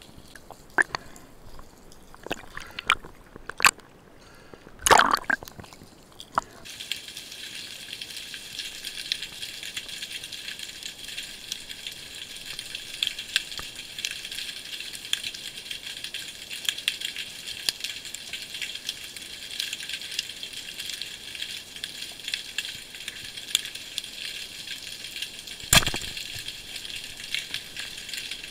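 Underwater sound picked up by a diver's camera. First come scattered knocks and a sloshing burst about five seconds in. Then, from about six seconds in, a steady dense crackle of tiny clicks typical of snapping shrimp on a rocky reef, with one sharp knock near the end.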